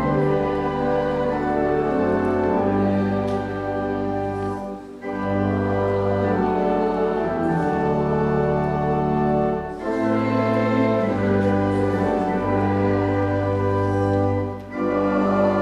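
Church organ playing slow, sustained chords in phrases, with a brief break between phrases about every five seconds.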